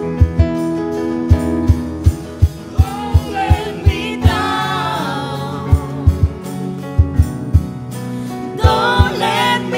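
Live Latin band music: a nylon-string guitar and a keyboard over a steady low thump on the beat. Singing voices come in about three seconds in and swell again near the end.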